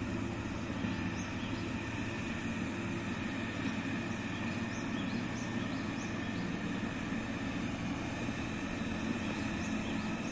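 Steady low drone of heavy diesel engines from a truck and a yellow road machine moving slowly along a dirt road, with a few faint high chirps scattered through.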